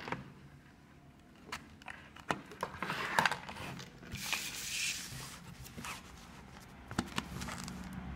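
Handling noise: scattered clicks and knocks as a phone is moved about, with a stretch of rustling in the middle as a sheet of lined paper is handled.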